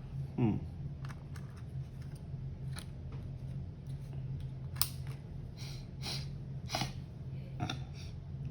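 Irregular light clicks and snaps of plastic as a laptop keyboard is worked at and pried to free it, the sharpest snap about halfway through, over a steady low hum.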